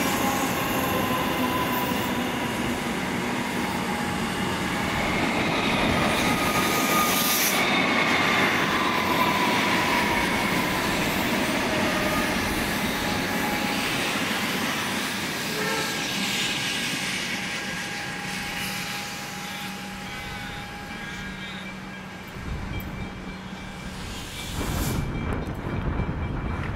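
Comeng electric multiple-unit suburban train running past, a steady rolling rumble of wheels on rail with whining traction-motor tones that slowly fall in pitch as it draws away. Near the end a second electric train approaches and the rumble builds again.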